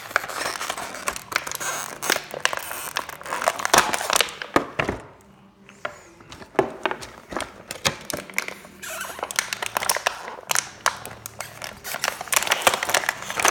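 Clear plastic packaging crinkling and rustling as an action figure is pulled free, with scattered clicks and knocks of hard plastic being handled and a short lull about five seconds in.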